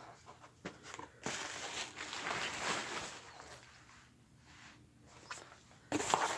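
Plastic bubble wrap rustling and crinkling as a laptop is unpacked from a cardboard box, with a few light handling knocks. The rustling is loudest in the first half, dies down, then picks up again near the end.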